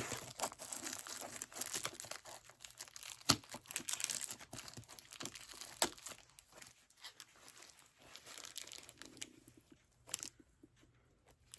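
Plastic packaging crinkling and tearing, with small clicks of hand tools being handled, busiest in the first six seconds and thinning out toward the end.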